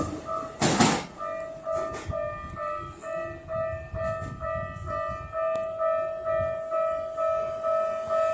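A Keikyu train rumbling over the rails, cutting off about a second in, leaving a Japanese level-crossing warning bell ringing its steady electronic two-tone ding about twice a second.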